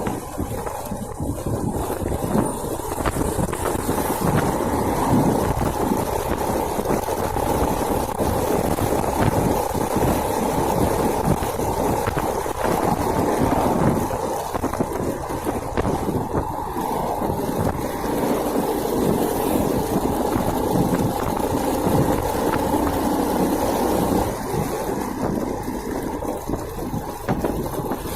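Small motorcycle engine running steadily under way, mixed with rushing wind and road noise.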